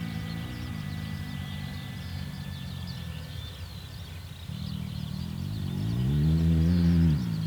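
Electric motor and propeller of a small RC plane running in flight, a steady pitched drone that fades a little mid-way, then swells louder with its pitch rising and falling back before it drops off sharply near the end. Birds chirp faintly throughout.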